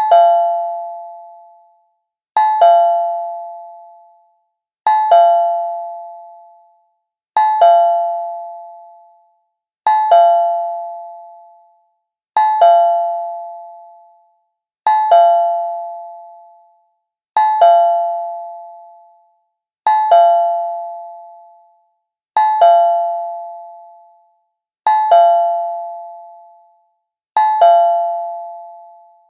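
Cartoon doorbell sound effect: a two-note chime, each ring fading out over about two seconds, repeated about every two and a half seconds.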